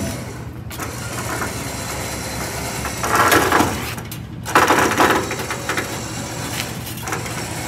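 A vehicle engine idling steadily, with two short, louder rushes of noise about three and five seconds in.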